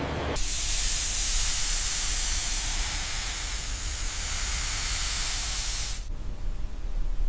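A steady, loud hiss like a spray over a low rumble. It starts about half a second in and cuts off about six seconds in.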